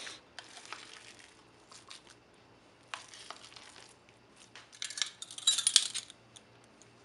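Plastic spoon stirring a thick mashed-potato mixture in a glass bowl, with scattered light clicks and scrapes against the glass. About five seconds in comes a denser, louder run of clinks and rattles lasting about a second and a half.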